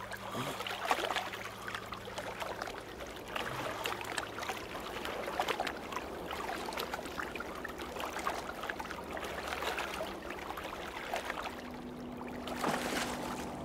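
Water lapping and trickling with small splashes as a person moves through it waist-deep, over a steady low hum; a second low tone joins near the end.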